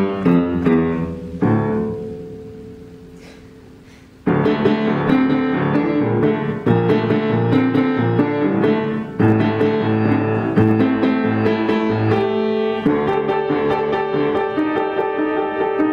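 Upright acoustic piano played solo: a few notes, then a held chord left to ring and die away for about three seconds, before full chords come back in suddenly and continue.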